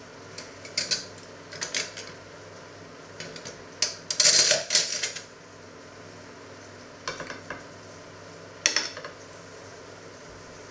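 Metal cutlery clinking: a knife and fork handled and set down on a china plate, in about six short clusters of sharp clinks and rattles, the loudest about four seconds in. A steady low hum sits underneath.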